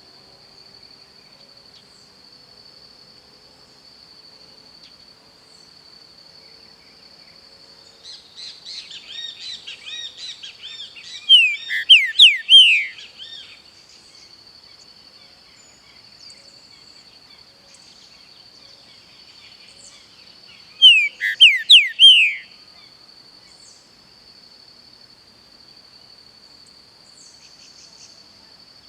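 Pixarro (green-winged saltator) singing: two loud phrases of about four sharp falling whistled notes, about nine seconds apart, the first preceded by a few seconds of softer chattering. A steady high insect buzz runs underneath.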